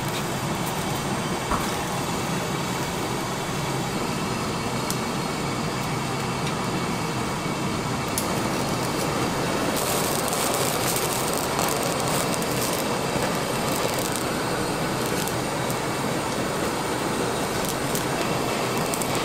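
Steady roar and sizzle of a grill cooking whole red bell peppers. About ten seconds in a handheld blowtorch joins with a louder hiss as it chars the pepper skins.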